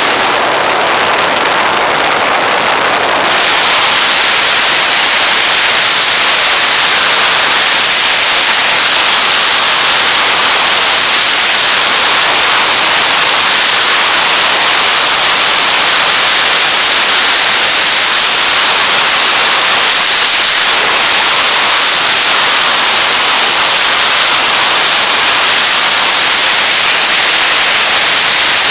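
Wind rushing over the microphone of a camera on a moving motorcycle: a loud, steady hiss with no engine note standing out. The hiss turns brighter about three seconds in.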